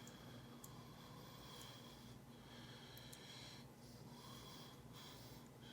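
Near silence: a faint steady hum with soft breathing near the microphone and a few faint clicks.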